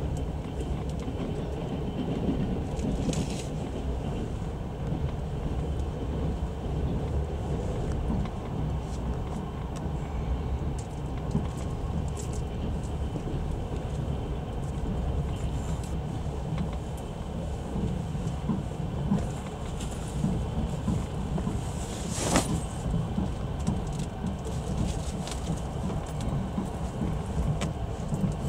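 Passenger train carriage rolling on the rails, heard from inside the coach: a steady low rumble with a few light clicks and one sharp clack about two-thirds of the way through.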